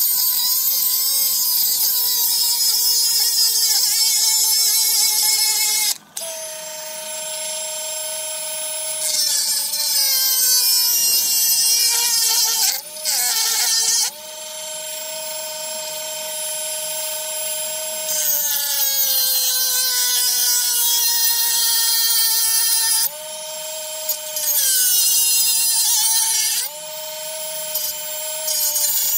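Dremel rotary tool cutting through a metal pipe: a high motor whine over a loud hissing grind. The pitch sags each time the tool bites into the metal and jumps back up when the load eases, several times over.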